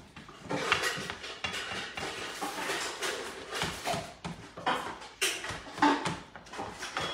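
Ground beef and chorizo sizzling in a stainless steel skillet while a spatula stirs and breaks up the meat, with repeated scrapes and taps against the pan.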